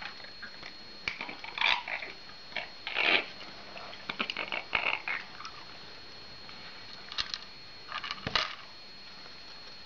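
Cat eating dry food from a plastic bowl: short crunching and clattering noises in scattered bursts. About eight seconds in, a louder scuffle and a sharp thump as the cat swats at the parrot beside the bowl.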